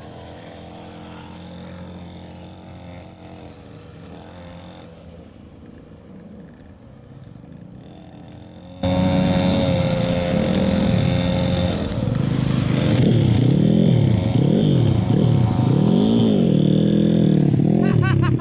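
Off-road engines running. About halfway through the sound suddenly gets much louder, and an engine revs up and down over and over.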